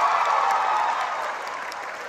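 A held musical note from the stage, singing with the orchestra, dies away over about the first second. Scattered claps of audience applause run through it.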